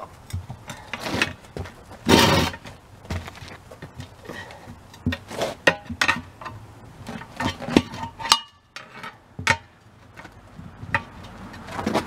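Steel pry bars clinking, knocking and scraping against a steel wheel rim as they are levered around the tire bead to work the tire off the rim. There is a louder rasping burst about two seconds in.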